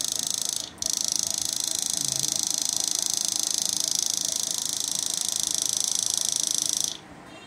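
High-voltage electric arc burning across the output leads of a 1500 W electric shock-fishing machine: a steady, high-pitched buzzing hiss with a fast ripple. It drops out for an instant just under a second in and cuts off near the end.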